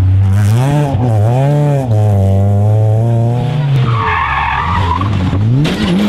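Rally car engine at high revs, its pitch swinging up and down several times as the throttle is lifted and reapplied through a slide on a dirt stage, then holding steady. Near the end comes a short burst of noise and another rise and fall in engine pitch from a second car.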